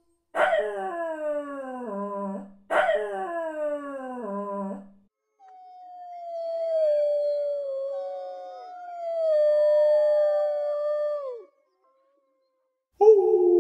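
Dogs howling: two howls about two seconds apart that each start high and fall, then a longer, lower howl with a second, higher howl drifting over it, cutting off about 11 seconds in. A new howl starts just before the end.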